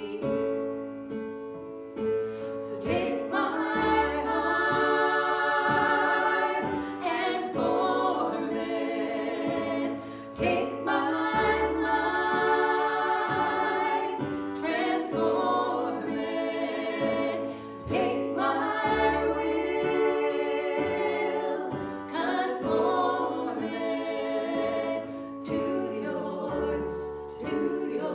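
A worship song in a church service: several voices sing together over instrumental accompaniment, with a deep bass note returning about every seven or eight seconds.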